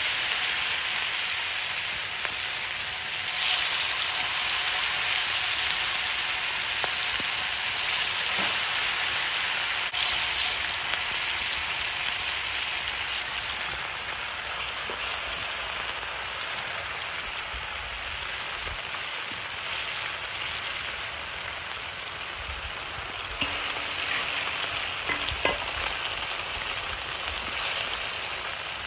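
Chilli-masala-coated fish slices frying in hot oil in a wide pan, a steady loud sizzle. A few light clicks sound near the end.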